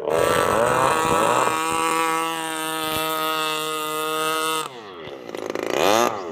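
Small grass-cutter (brush cutter) engine driving an RC speedboat, running at a steady high-pitched buzz. About four and a half seconds in it drops away, then revs up and down in quick surges.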